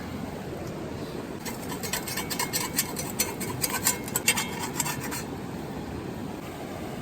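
Steady rush of river water, with a run of quick scraping and clicking lasting about four seconds in the middle.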